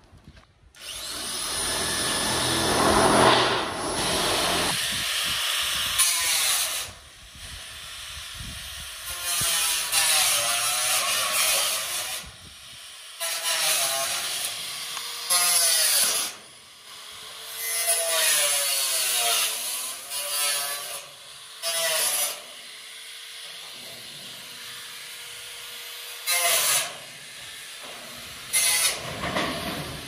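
A power tool running in repeated bursts of a second to a few seconds, its pitch sagging and rising as it works through material during building work.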